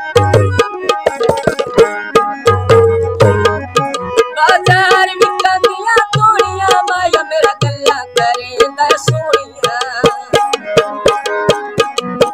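Tabla played in a brisk rhythm with deep bass strokes, under a harmonium playing a Punjabi mahiye-tappe folk melody. A man's voice sings over it in the middle.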